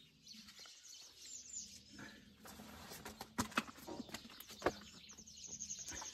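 A few faint, sharp clicks and taps as a pool cover's tie-down strap and hook are handled at the pool edge. A small bird chirps in a quick high trill near the end.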